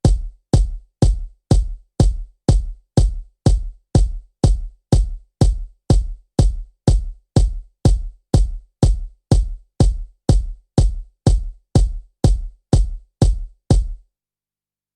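Background electronic music intro: a lone drum-machine kick drum on every beat, about two thumps a second, stopping about a second before the end.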